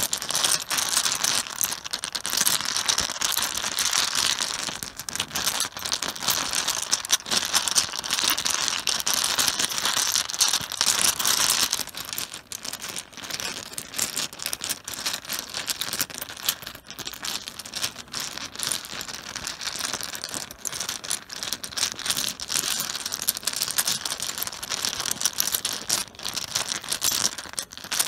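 Mahjong tiles clattering against one another on a cloth-covered surface: a dense, continuous clacking, heavier through the first half.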